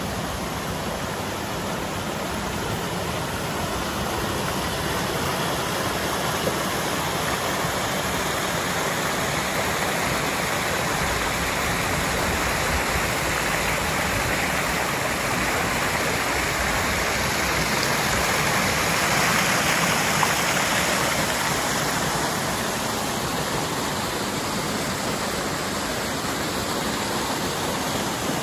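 Small waterfall pouring down a mossy bank and splashing into a pool: a steady rushing of water that swells a little about two-thirds of the way through.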